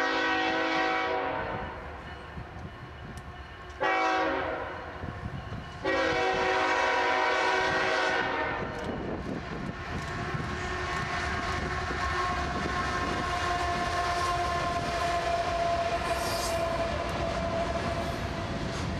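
A CSX GE Evolution-series diesel locomotive leading a double-stack intermodal train blows its multi-note horn: one blast ends about a second in, then a second blast, then a third that follows almost straight on, ending about eight seconds in. The locomotives then pass with their engines running, and the stack cars roll by with wheel clatter and a steady ringing tone.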